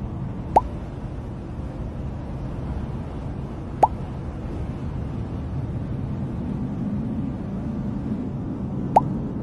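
Water-drop plop sound effect, three short blips that rise in pitch, spaced a few seconds apart, over a steady low hum.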